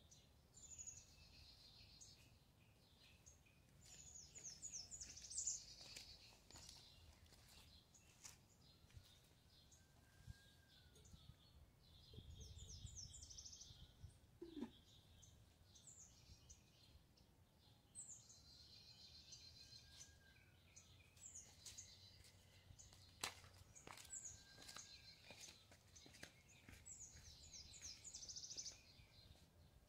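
Faint birdsong: high, rapid trilled phrases repeating every few seconds, with a fainter, lower rising-and-falling whistle recurring in between.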